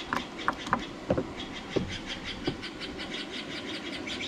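Several light clicks and knocks, mostly in the first half, from handling a freshly soldered battery cable lug. Under them are a steady hiss and a rapid high ticking, several ticks a second.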